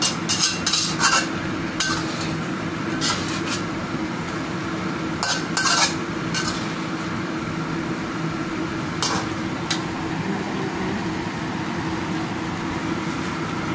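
A metal spatula scrapes and clinks against a wok while chicken pieces in thick sauce are stirred. The strokes come in bursts through the first half and twice more about nine seconds in, over a steady low hum.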